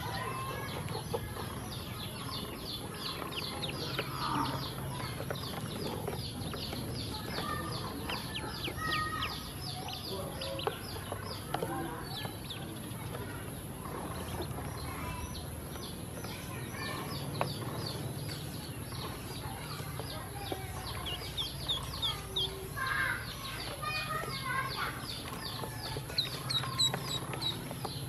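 A group of ducklings peeping almost without pause: rapid trains of short, high, downward-sliding peeps, with scattered softer, lower chirps, over a low steady hum.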